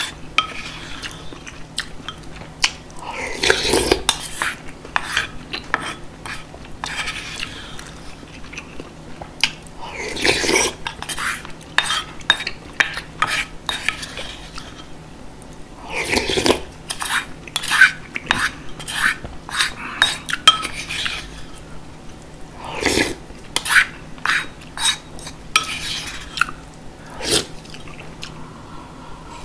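Wooden spoon tapping and scraping against a ceramic bowl as the last of a spicy beef soup (yukgaejang) is scooped up and eaten, with a louder slurp about every six to seven seconds.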